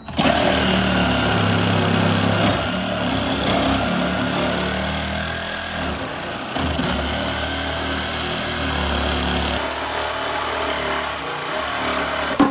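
Cordless reciprocating saw running as it cuts into the plastic heater box behind the dashboard, its level shifting a little along the way. It stops abruptly at the end.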